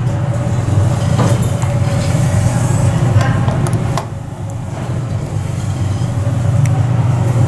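Steady low hum inside a Mitsubishi traction elevator cab while riding, with a few light clicks, one about four seconds in as the lobby call button is pressed.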